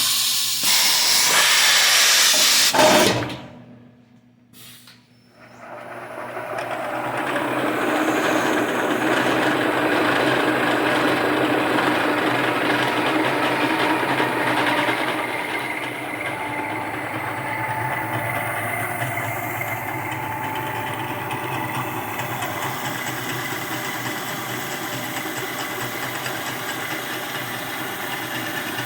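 1980 Shizuoka AN-S CNC milling machine spot drilling 1018 carbon steel, its spindle and the cut making a steady mechanical hum with a held whine. It follows a loud hiss that cuts off about three seconds in, and the machine noise comes up about five seconds in.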